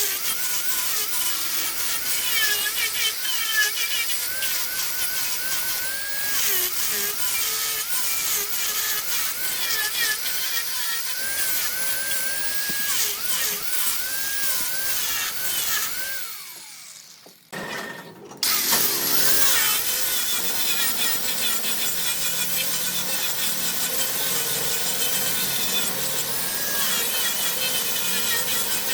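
Wood lathe turning, a tool cutting into the spinning wood with a steady hiss and a wavering squeal. About two-thirds of the way through the sound drops away for a couple of seconds, then the cutting starts again over a steady low hum.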